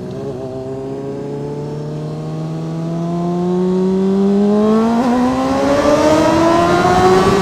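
Honda CBR sportbike's inline-four engine cruising steadily, then revving up smoothly through the range in one gear as the bike accelerates, louder and higher as it goes.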